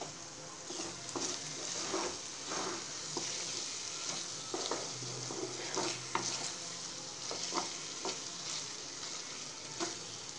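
Wooden spatula stirring and scraping a thick bread halwa mixture around a nonstick pan, with irregular scrapes and taps over the steady sizzle of the mixture cooking.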